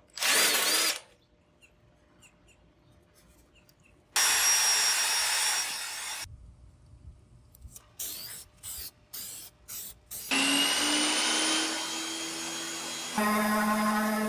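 Power tools working on the gate in separate bursts: a short burst, a longer run of about two seconds, a string of quick on-off trigger pulses, then a motor spinning up and running steadily with a humming tone near the end.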